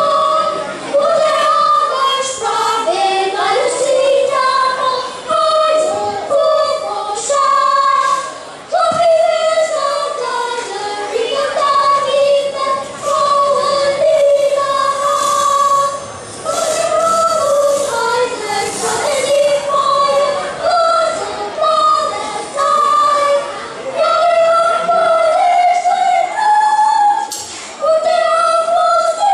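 A small group of children singing a song together into microphones, in phrases broken by short pauses for breath.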